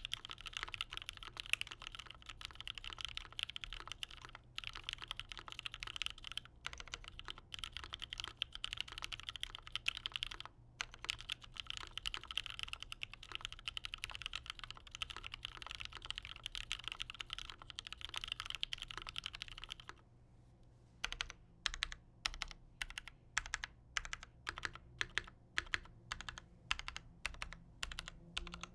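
Typing on a dnworks Seven prototype mechanical keyboard with lubed Cherry-topped Tealios linear switches, an aluminium plate on a double O-ring mount and GMK keycaps. Fast continuous typing for most of it, then a short pause about twenty seconds in, followed by single keystrokes at an even pace, about one and a half a second.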